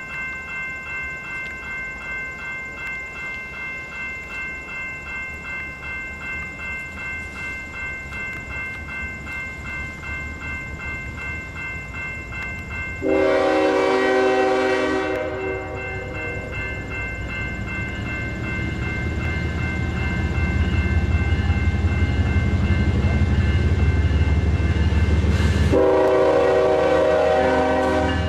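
Grade crossing warning bell ringing steadily, about two strokes a second. About 13 seconds in, a GE ES44DC diesel locomotive's air horn sounds a long blast of about two seconds. The locomotive's low rumble then grows louder as it approaches, and a second long horn blast starts near the end.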